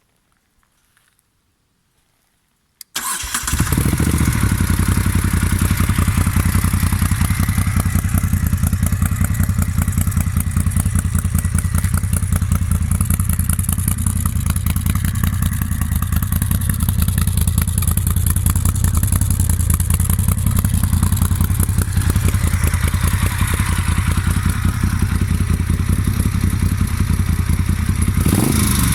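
Moto Guzzi Audace's 1380 cc V-twin with a Mistral aftermarket exhaust, started about three seconds in after a near-silent pause, then idling steadily with a deep, even beat. Near the end the throttle is blipped, the pitch rising and falling.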